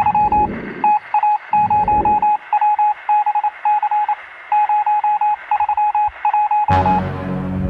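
Telephone-like electronic beeping: one steady mid-pitched tone switching rapidly on and off in uneven runs, with two low swelling rumbles under it in the first two seconds. Near the end it breaks off into music that opens with a sudden hit and a sustained low drone.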